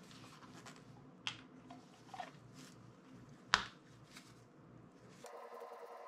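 A few light clicks and taps of small parts and hand tools being handled, the sharpest about three and a half seconds in, over a low steady hum.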